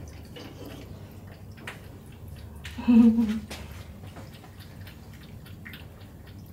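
A cat lapping water from a bowl: a run of small, quick, wet clicks. About three seconds in, a short voice sound, pitched like a low hum, is the loudest thing.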